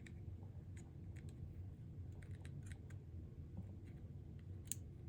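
Faint, scattered small clicks and taps of the shaver's motor parts being handled while a carbon brush's tab is pried up, with one sharper click near the end.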